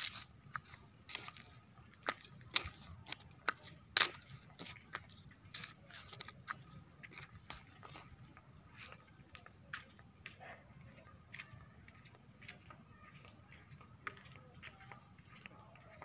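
Night insects chirring in a steady high-pitched drone, with footsteps clicking on asphalt about twice a second, loudest in the first few seconds and then fainter.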